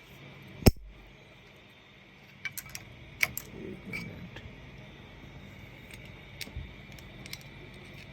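Sharp clicks and small knocks of plastic and metal shredder gear parts being handled and pressed into place. The loudest is a single knock about a second in, followed by a cluster of clicks a few seconds later and a few scattered ones near the end.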